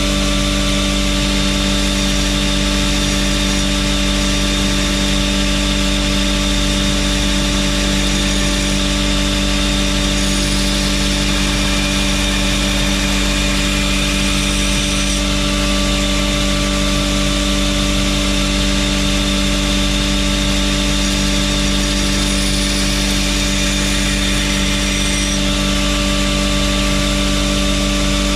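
Belt grinder running steadily at one even pitch.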